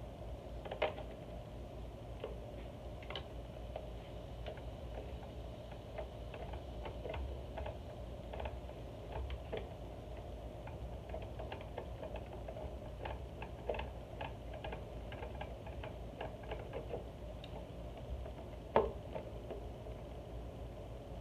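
Phillips screwdriver taking out the screws of a Razor MX350 electric dirt bike's battery casing: soft, irregular clicks and ticks of the tool and screws, with two louder clicks about a second in and near the end.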